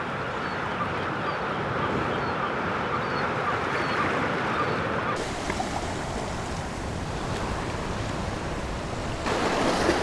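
Ocean surf breaking on a rocky shore, a steady rush of waves. The sound changes abruptly about five seconds in and again near the end.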